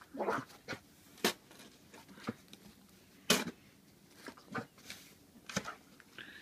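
Snow shovel scooping and flinging snow: a series of short, sharp scrapes and crunches, the loudest about a second in and again about three seconds in.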